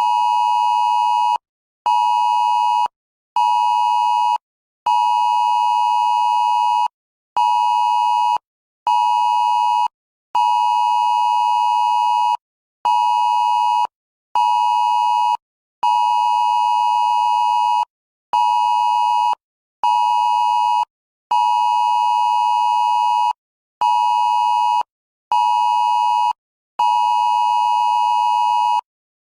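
Emergency alert system test tone: a steady two-note electronic tone near 900 Hz, keyed on and off in a repeating pattern of one long beep of about two seconds followed by two shorter one-second beeps.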